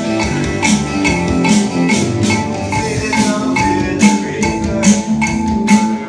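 Music with a steady beat and a handheld cowbell struck with a drumstick in time, about two strikes a second.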